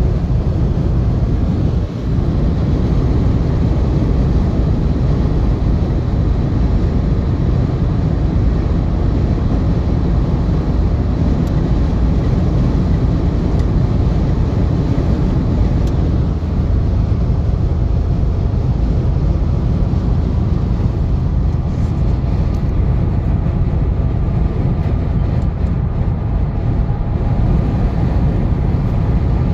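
Steady cabin noise of a car cruising on a motorway: a low road rumble with tyre and wind noise, even throughout.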